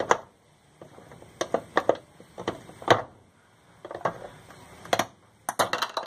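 Small flat screwdriver prying and scraping at the plastic centre cap of a twin-tub washing machine's pulsator. It makes a string of irregular sharp clicks and scrapes of metal on plastic, with a quick cluster near the end as the cap comes free.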